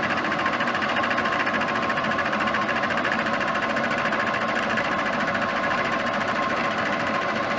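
Metal lathe running steadily through a cut: a constant whine with a fast, even rattle.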